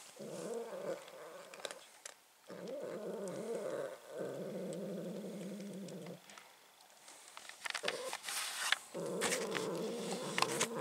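A cat growling over a shared food bowl in long, low, drawn-out growls with short breaks, warning the other cats off the food. Between growls, a few seconds from the end, dry kibble crunches.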